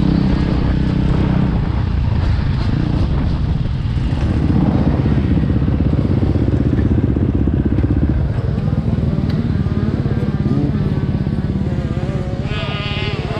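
KTM 250 SX-F's single-cylinder four-stroke engine running at low revs while the bike rolls slowly. The engine rises a little from about four to eight seconds in, then settles back to a steady idle. A voice is heard over it near the end.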